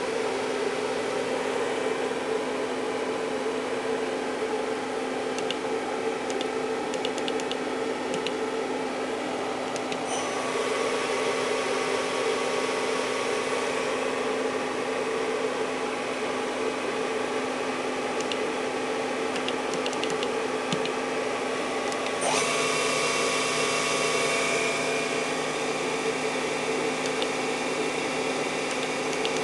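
Makino RMC 55 CNC milling machine's spindle running with a steady whine, changing abruptly to a new speed about ten seconds in and again about twenty-two seconds in.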